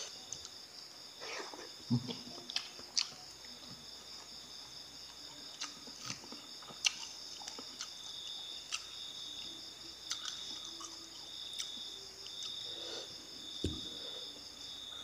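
Close-up chewing and scattered wet mouth clicks and smacks of someone eating fish, rice and raw vegetables by hand. A steady high chirring of insects runs behind it.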